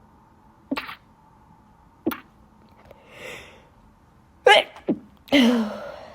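A woman sneezing in a run from allergies: a few short sneezes and a sharp breath in, then two loud voiced sneezes near the end, the last trailing off.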